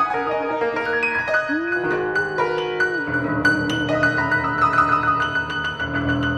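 Instrumental music: sustained piano-like and mallet-like keyboard notes over a layered pad, with a low steady bass tone entering about halfway through.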